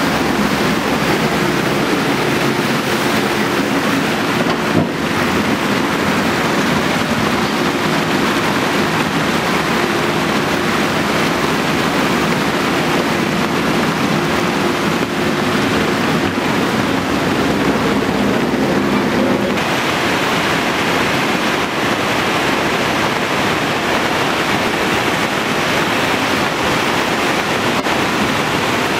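Loud, steady rush of muddy floodwater, with wind noise on the microphone. A steady engine hum from a JCB backhoe loader working in the flood runs under it and stops suddenly about two-thirds of the way through.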